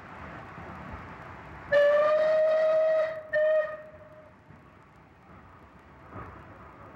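Bulleid light Pacific steam locomotive sounding its whistle: one long blast of about a second and a half, then a short toot, over a steady hiss of escaping steam.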